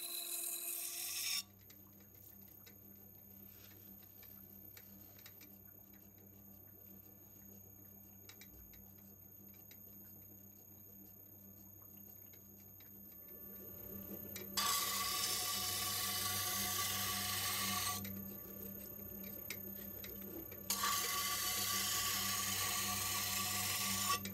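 Motor-driven wet grinding wheel running with a steady hum while a sashimi knife's steel blade is ground flat against it under a stream of water. A grinding hiss cuts off about a second and a half in, leaving only the motor hum, then returns as two grinding passes of about three seconds each in the second half.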